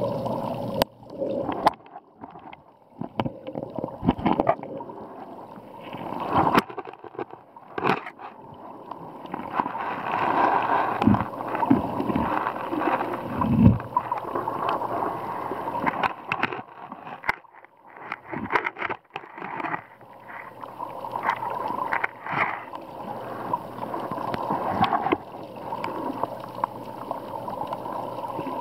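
Muffled sloshing and gurgling of shallow seawater heard through an underwater camera, swelling and fading, with scattered sharp clicks and knocks.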